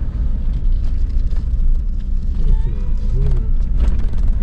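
Steady low rumble of a car driving, heard from inside the cabin, with a faint voice briefly a little past halfway.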